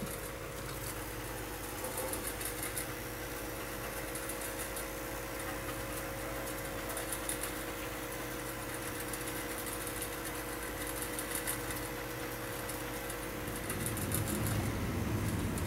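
A steady mechanical hum with a couple of held tones, with faint clusters of fine, scratchy high ticks now and then. About two seconds before the end a louder low rumble of handling noise comes in as the camera is moved.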